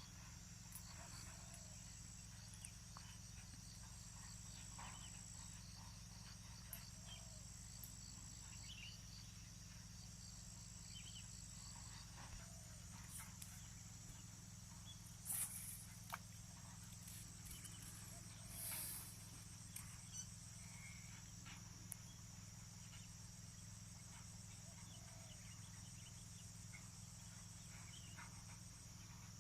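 Insects chirring steadily in the background, a high-pitched pulsing drone, with scattered faint clicks and two brief louder noises about halfway through.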